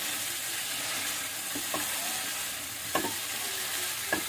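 Oil sizzling in a nonstick frying pan as batter-fried egg pieces are stirred with a plastic spatula, with a few short clicks of the spatula against the pan.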